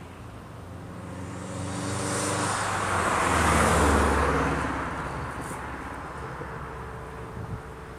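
A car passing close by on a road, its engine and tyre noise rising to a peak about halfway through and then fading, the engine hum dropping in pitch as it goes past.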